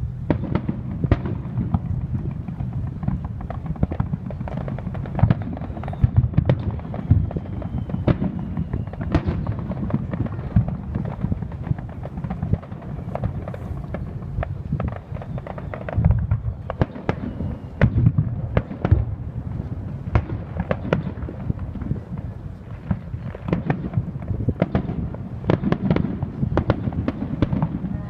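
Aerial fireworks bursting in a continuous barrage: rapid crackling reports mixed with deeper booming shell bursts, a few heavier booms past the middle.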